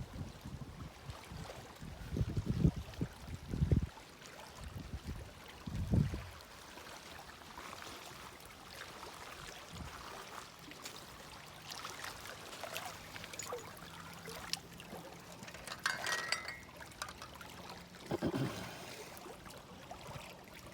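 Moving water trickling and lapping, with a few low rumbles in the first six seconds.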